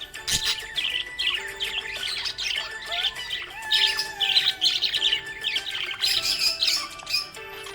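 Budgerigars chirping and warbling in a continuous stream of quick, high chirps.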